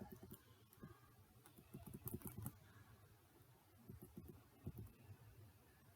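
Near silence with a few faint, short taps or clicks in two small clusters, about two seconds in and again around four to five seconds in.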